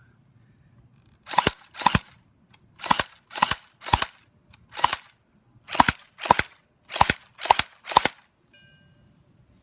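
Electric airsoft pistol, an H&K P30 replica, firing single shots on semi-auto. There are eleven sharp shots, spaced about half a second to a second apart.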